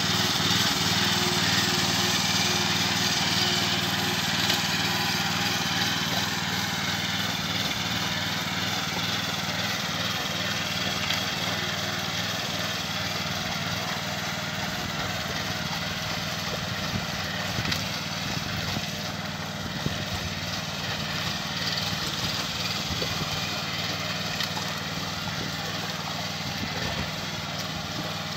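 Small engine of a walk-behind rice transplanter running steadily as it plants in a flooded paddy, growing gradually fainter as the machine moves away.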